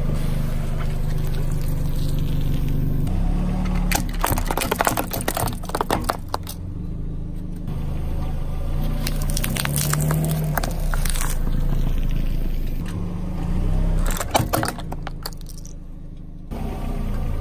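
Car engine running at low speed while a tyre rolls over and crushes small objects, with bursts of crunching and crackling about four to six seconds in and again about fourteen seconds in.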